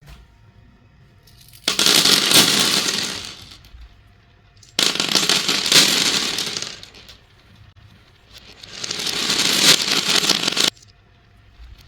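Masses of small beads and balls pouring and clattering in a dense rattle, in bursts of about two seconds. The first two bursts start abruptly and trail off. The later ones swell up and cut off suddenly, as a pour played in reverse does.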